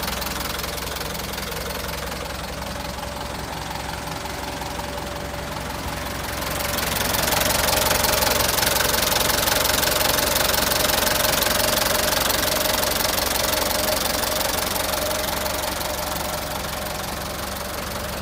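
Mitsubishi 4D34 four-cylinder diesel engine of a 1996 Canter truck idling steadily. It grows louder about six and a half seconds in and eases off slightly near the end.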